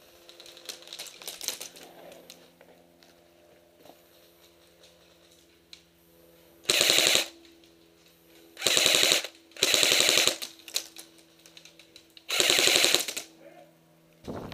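Airsoft electric rifle firing four short full-auto bursts, each about half a second to a second long, with a clattering stream of rapid shots in each burst.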